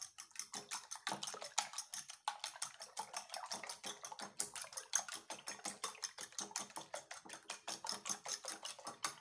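Fork beating raw eggs in a glass bowl: fast, steady clicking of the metal tines against the glass, about six or seven strokes a second, with the wet slap of the eggs, stopping at the very end.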